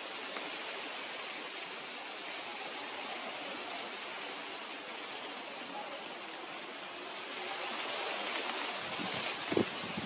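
Steady outdoor background hiss, like wind or distant running water, with no bird calling. It grows a little louder in the second half, and a few dull low bumps come near the end.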